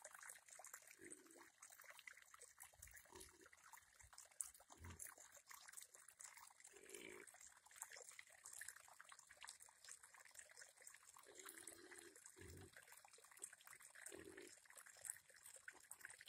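Faint, short grunts from two domestic pigs fighting, about seven scattered through, over a faint hiss.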